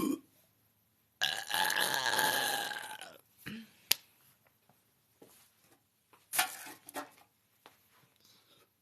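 A woman's long, loud burp lasting about two seconds, starting about a second in. It is followed by a sharp click and a few faint short sounds.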